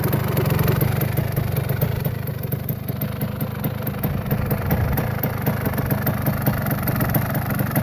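1984 Husqvarna CR250's water-cooled 250 cc two-stroke single-cylinder engine idling with a steady, even beat.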